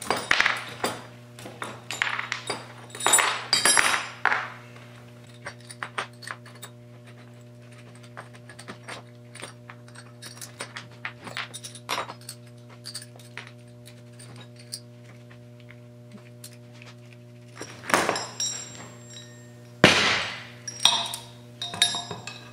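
Steel hand tools clinking and clattering on a wooden workbench as a jaw puller and its bolts are picked through and fitted together. The loudest clatters come at the start, around three to four seconds in, and again near the end, over a steady low hum.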